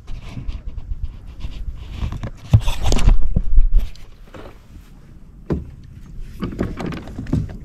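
Handling noise on a kayak: irregular knocks, clicks and rubbing, with a loud, low buffeting about two and a half seconds in that lasts over a second.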